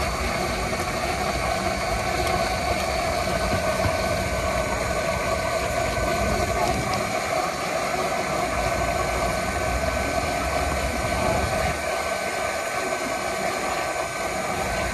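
Electric blender motor running steadily while whirling juice, a continuous drone with a held tone.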